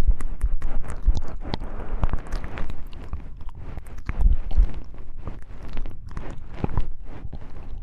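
Wooden knobs being handled and tapped close to a microphone: a quick, irregular run of clicks and knocks with low thumps.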